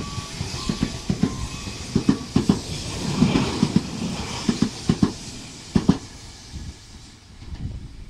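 Tobu 500 series "Revaty" limited express electric train passing through the station at speed, its wheels clattering over the rail joints in a run of irregular thumps. The clatter fades after about six seconds as the rear of the train goes by.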